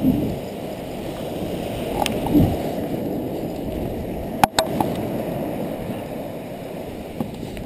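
Steady low rushing of surf on a beach mixed with wind buffeting the microphone, with a sharp click about four and a half seconds in.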